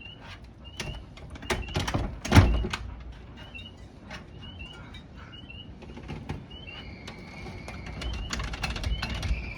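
Wind rumbling on the microphone after a thunderstorm, under a steady run of small, high chirps. Several sharp clicks and knocks stand out, the loudest about two and a half seconds in.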